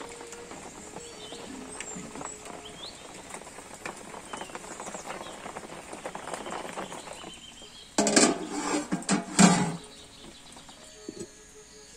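Wood fire crackling under a large aluminium pot, with birds chirping. About eight seconds in, a loud metallic clatter lasting under two seconds ends in a sharp clang as the pot's metal lid goes on.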